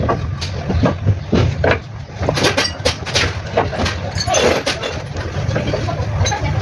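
Mitsubishi 4M40 diesel engine running with a steady low hum, overlaid by irregular sharp clicks and knocks.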